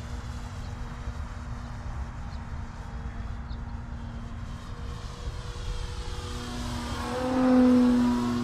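Electric motor and propeller of an Extreme Flight 60-inch Extra NG RC aerobatic plane in flight, a steady drone that grows louder as the plane passes close near the end, then fades.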